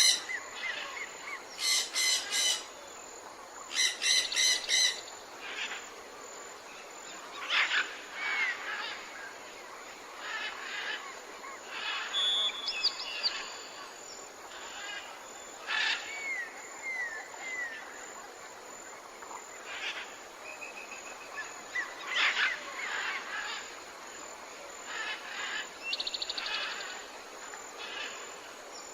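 Jungle ambience: many birds calling over a steady background hiss of insects and forest, with loud repeated chirps near the start, falling whistled notes at intervals and a fast trill near the end.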